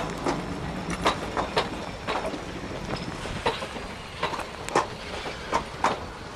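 Heavyweight passenger coaches rolling past close by at low speed, their steel wheels clacking on the track in an uneven run of sharp clacks over a steady rumble.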